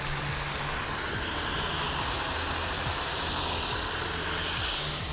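Pressurised water spraying out of a leak in a broken PVC sprinkler pipe at a glued elbow, a loud steady hiss.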